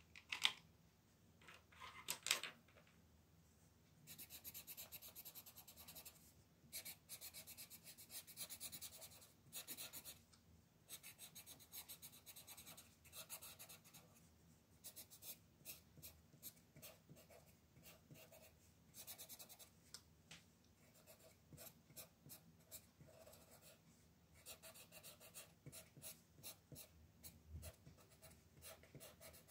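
Colored pencil scratching across coloring-book paper in quick back-and-forth shading strokes, starting about four seconds in and pausing briefly now and then. A couple of light taps come before the strokes begin.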